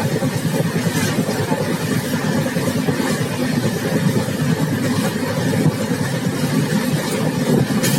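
Intercity superfast express train running at speed, heard from its open exit door: a steady, loud rumble of the train on the rails, with a few faint clicks.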